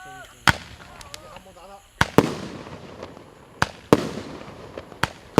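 Firework battery cake of 1-inch shots firing: sharp reports at uneven intervals, about seven in all, each followed by a fading rumble. A person's voice is faintly heard near the start, before the second report.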